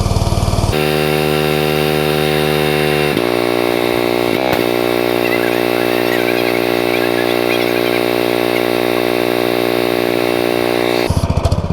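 Honda engine of a gas pressure washer running steadily, throttled down and warming up after a cold start. Its tone shifts abruptly about a second in and again around three seconds in, with a brief wavering in pitch a little after four seconds.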